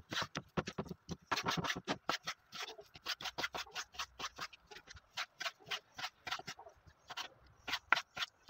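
Kitchen knife cutting raw chicken breast fillet into cubes on a wooden cutting board. It makes a rapid series of knife strokes, each tapping and scraping on the board, several a second.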